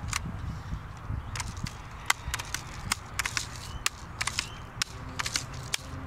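Scattered sharp clicks and taps at irregular intervals over a low steady rumble: handling noise from the Daisy 880 air rifle and the phone between shots.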